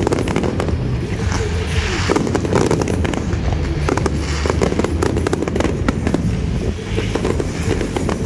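Fireworks display: dense, rapid crackling and popping from many glittering crackle shells bursting at once, with heavier bangs mixed in.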